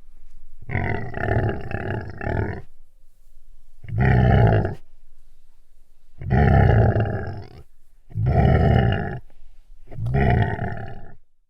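Animal growls: five deep, rough growls in a row, each about one to two seconds long, separated by short pauses; the first is the longest.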